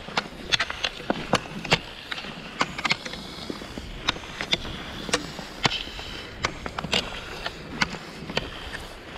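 Cross-country skiing: ski pole tips plant with sharp clicks about twice a second into thin snow over pavement, under a steady hiss of Fischer Twin Skin skis scraping and gliding on the snow.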